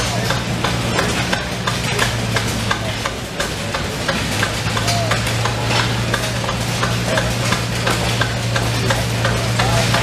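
Keck-Gonnerman steam traction engine running: a steady low hum under a hissing, sizzling noise, peppered with many short clicks and ticks. The hum dips briefly about three seconds in.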